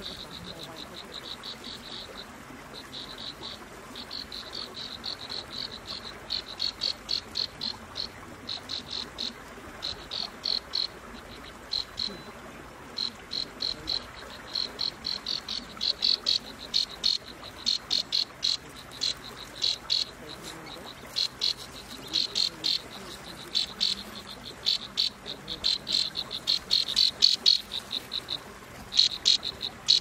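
Insect chirping in short, rapid trains of high-pitched pulses. The bursts come thick and fast, growing louder and more frequent through the second half.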